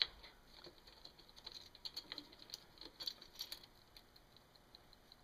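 Faint, scattered light clicks and taps of a partly disassembled Honda ATC110 engine being handled and set down on a workbench, sharpest right at the start. A faint, rapid, even ticking comes in near the end.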